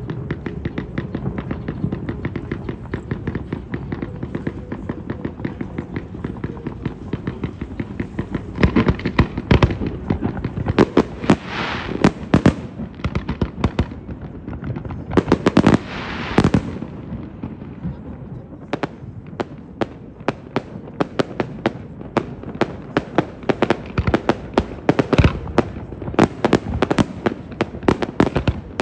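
Aerial fireworks display going off in quick succession: a continuous run of sharp bangs and crackles. Two loud, dense flurries of crackling come about a third of the way in and again past the middle, followed by a rapid string of separate reports.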